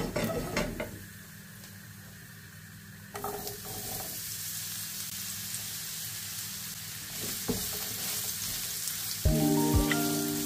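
Oil sizzling in a frying pan with sliced garlic, turning to a louder, steady sizzle from about three seconds in as diced pumpkin fries in the pan.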